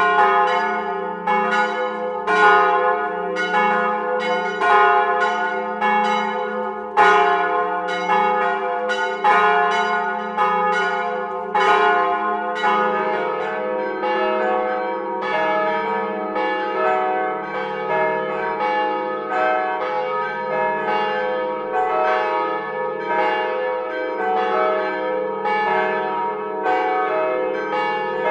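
Several swinging church bells ringing together in a full peal, their strokes overlapping with no pause. About halfway through, the peal changes to another church's bells with a different set of notes.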